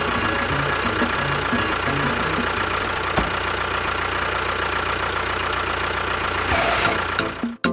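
A tractor engine running steadily at idle, cutting off abruptly near the end.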